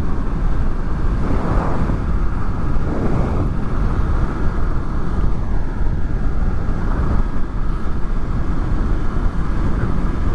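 Steady wind rush and road noise on helmet microphones fitted with furry windshields, with a Honda VFR800's V4 engine running underneath while the motorcycle is ridden at speed. A faint tone drops in pitch about five seconds in.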